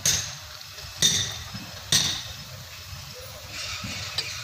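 Three sharp metallic clinks about a second apart, each with a short ring: hand tools striking the steel of a gearbox being taken apart, followed by quieter scraping and shuffling of tools.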